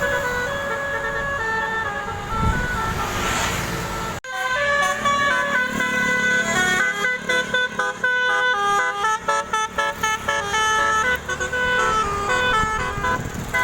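Basuri telolet horn, a multi-trumpet musical horn, playing a tune of held notes that step up and down in pitch. After a sudden break about four seconds in, the notes come quicker and shorter.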